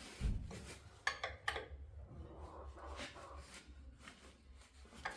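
A few scattered light metal clinks and knocks from hand wrenches being handled and swapped, over a low steady hum.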